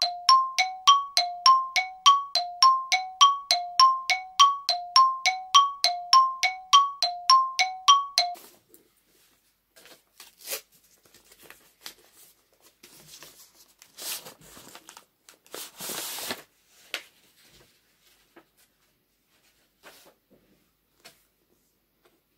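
A bell-like two-note chime, struck about three times a second and alternating between a lower and a higher note, rings evenly and stops abruptly about eight seconds in. After it, paper crinkles and rustles in short spells as a paper-wrapped book is opened.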